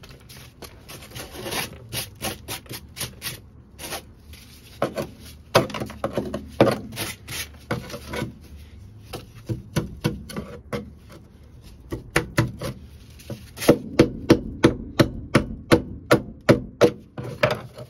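Brittle black coating being broken, peeled and scraped off a car's bare steel floor pan, first by gloved hand and then with a hand scraper, crackling and crunching as pieces come away. Near the end come quick repeated scraping strokes, about two and a half a second.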